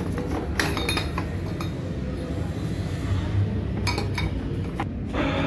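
Steel exhaust pipe clinking and knocking against a hand-operated gear-driven pipe bender as it is set up for a second bend. There are sharp metallic clinks about half a second in and again near four seconds, over a steady low hum.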